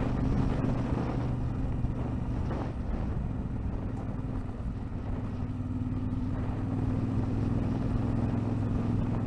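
Vehicle engine running at a steady pace while travelling a rough road, with a constant hum and road and wind noise.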